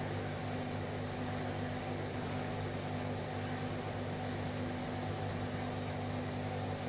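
Steady low mechanical hum with several constant low tones over an even hiss, unchanging throughout.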